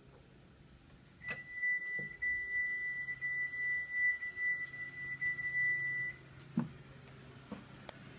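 Hitachi front-loading washing machine sounding one long, steady electronic beep lasting about five seconds, over a low hum. A few light knocks come before and after the beep.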